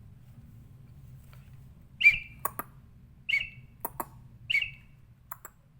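Lovebird giving three short, high chirps a little over a second apart, with a few sharp clicks in between.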